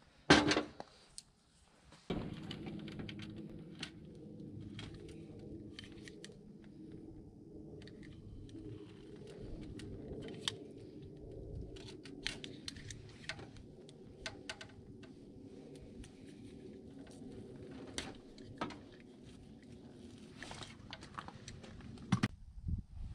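Snips and clicks of hand tools cutting and crimping a heavy battery ground cable, with a loud clack right at the start. A steady low hum runs under them from about two seconds in and stops near the end.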